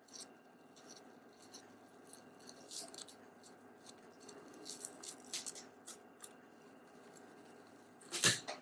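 Faint crinkling and rustling of a metallized EMI shielding film being peeled back off laptop memory, with scattered short crackles, the loudest near the end.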